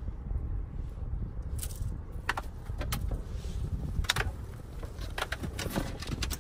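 A scattering of sharp clicks and light knocks of gear being handled, over a low wind rumble on the microphone.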